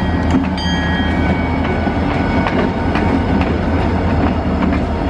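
CN freight train rolling past, a loud steady rumble of freight car wheels on the rails with repeated clicks as the wheels cross rail joints.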